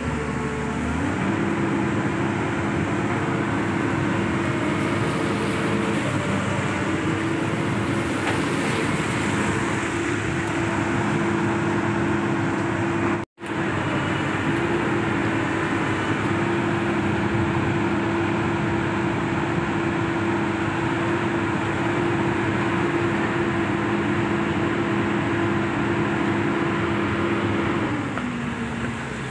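Komatsu hydraulic excavator's diesel engine running steadily with a pitched drone; it speeds up about a second in and drops back to a lower pitch near the end. The sound cuts out for a moment about halfway.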